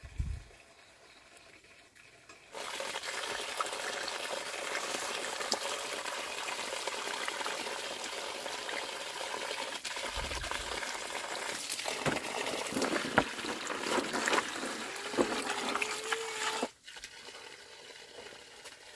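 Water running steadily with a few knocks and clicks. It starts suddenly a couple of seconds in and cuts off suddenly near the end.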